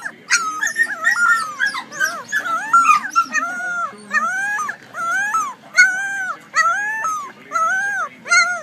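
A hound puppy trying to howl: a rapid string of short, high-pitched cries, each rising and then falling in pitch, about two or three a second.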